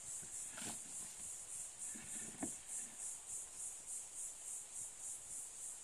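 Insects chirping: a faint, high, evenly pulsing trill, about four or five pulses a second, with a couple of brief faint sounds about a second and two and a half seconds in.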